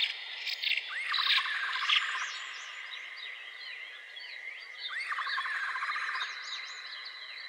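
Wild birds chirping over a steady high-pitched tone, with two short rapid trills, one about a second in and one about five seconds in.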